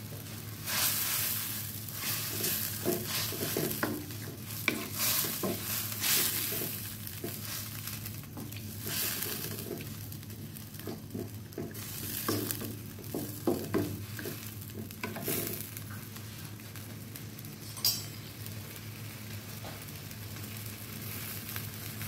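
Wooden spatula stirring a bubbling seafood curry in a nonstick wok, in irregular scraping strokes for roughly the first fifteen seconds, over a steady low hum. A single sharp click comes about three-quarters of the way through.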